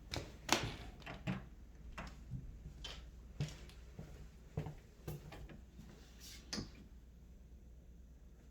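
A series of irregular knocks and clicks, about a dozen over the first seven seconds, then quieter.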